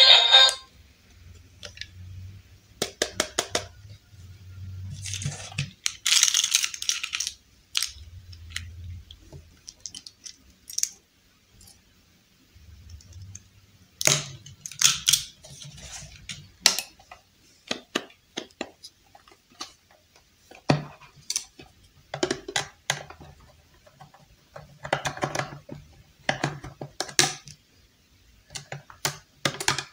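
Small hard plastic toy pieces handled and set down on a wooden table: irregular clicks, taps and light clatter, with a brief rustle near the start.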